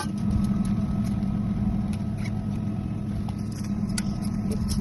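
Truck running down the road: a steady engine hum and road rumble, with a few light clicks and rattles.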